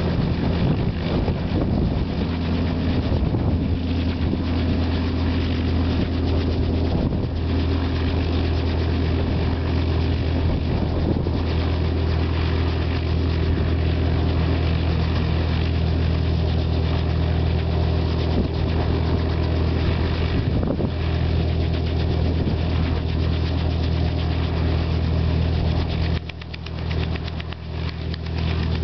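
Robinson piston-engine helicopter running on the ground, engine idling and main rotor turning steadily. Near the end the sound drops in level and becomes choppier.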